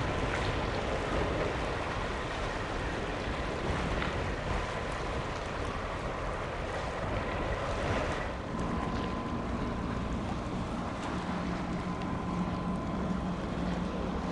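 Wind buffeting the microphone over waterside noise, with a low steady hum from a boat's engine coming in about eight seconds in.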